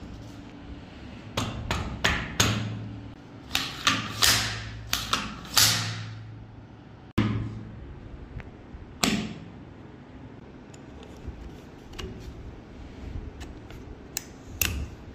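Steel parts of a light machine gun clicking and knocking together as they are fitted during reassembly. The sharp clicks come in a quick cluster in the first six seconds, with a single louder knock about nine seconds in and a few light ticks later, over a low steady hum.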